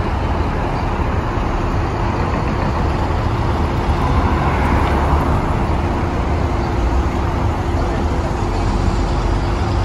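Steady road-traffic noise: vehicles running and tyres on the road, with a strong low rumble and a faint steady hum.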